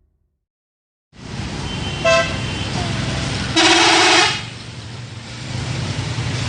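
A bus's telolet horn sounding over engine and road noise: a short toot about two seconds in, then a louder multi-note blast lasting under a second.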